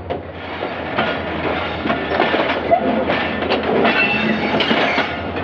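Passenger train rolling along the track, wheels clacking over rail joints now and then over a steady low rumble and hum.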